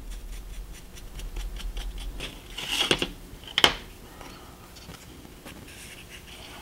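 Small paintbrush scrubbing pastel chalk powder onto a model brick wall in quick short strokes, about five a second. Near three seconds a louder rustle and a sharp click as the brush is set down and the wall pieces are picked up off the cutting mat, followed by faint handling.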